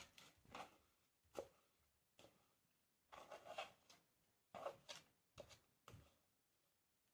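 Faint, scattered scrapes and rustles of a plastic mixing bowl being tipped and scraped out, with a sticky chocolate cereal mixture sliding into a second plastic bowl.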